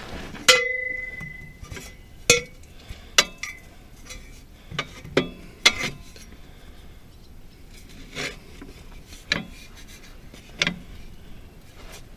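Steel cheater pipe and wrench clanking against each other and the mower deck's metal: about ten sharp metallic clanks at irregular intervals. The first one, about half a second in, rings briefly.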